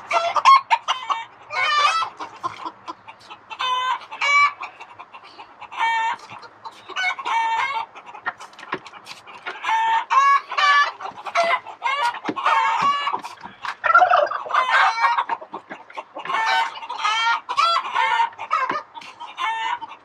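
A flock of chickens clucking and calling almost without pause, one short pitched call after another.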